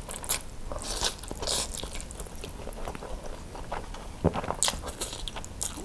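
Slurping and chewing a mouthful of thick spicy noodles, picked up close by a clip-on microphone: wet mouth sounds with hissy slurps and small clicks throughout.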